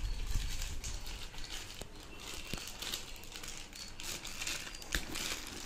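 Clear plastic sticker packet crinkling and rustling as it is handled, with a few small clicks.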